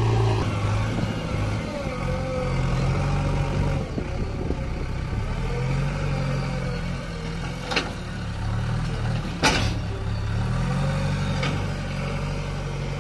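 Heavy diesel machinery engine working, its revs rising and falling in slow waves, with three sharp metallic knocks; the loudest is about nine and a half seconds in.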